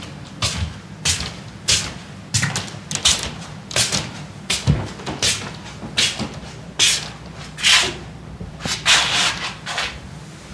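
Footsteps: a steady run of short scuffs on a hard floor, about one every half to one second, over a low steady hum.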